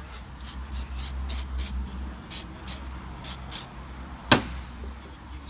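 A WD-40 aerosol can giving about nine short, quick sprays in the first three and a half seconds, lubricating the seal of a new fuel filter. A single sharp click a little after four seconds is the loudest sound.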